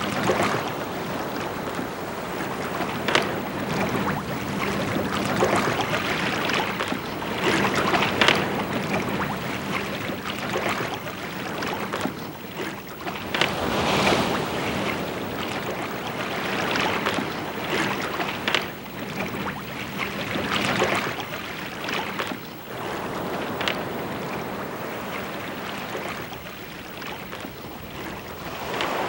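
Seawater sloshing and splashing right at a camera held at the water's surface, with irregular louder splashes from a swimming Newfoundland dog and a man in a wetsuit. A faint steady low hum runs underneath.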